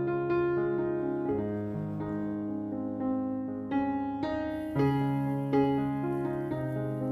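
Background piano music: a slow, gentle melody of single held notes over sustained bass notes.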